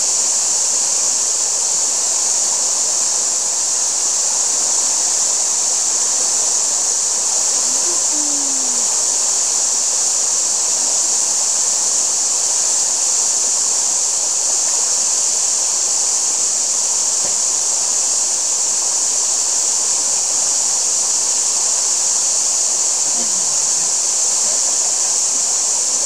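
Shallow stream flowing over rocks: a steady, unbroken hiss of running water, with faint voices briefly about a third of the way in and near the end.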